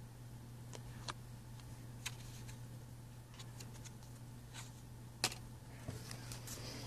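Playing cards handled in the hands: a string of short, sharp snaps and flicks at irregular intervals, the loudest a little over five seconds in and a quick run of them near the end.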